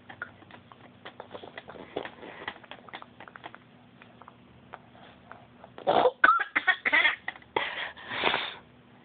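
A baby making weird noises: soft snuffles and little clicks, then a run of loud, breathy, cough- and sneeze-like bursts with a brief squeak, loudest in the last three seconds.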